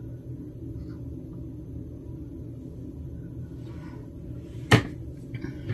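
Low steady room hum, with one sharp click or tap about three quarters of the way through.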